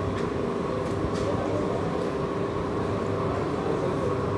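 Steady machine hum of office cooling fans, an even drone with a constant pitched tone that does not change.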